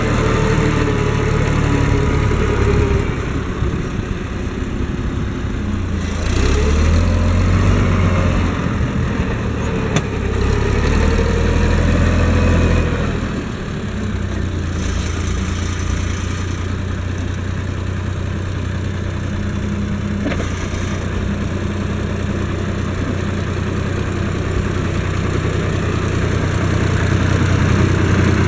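Case IH 1056 XL tractor's six-cylinder diesel engine running close by. Its pitch rises and falls a few times in the first half, then it settles to a steady, lower run.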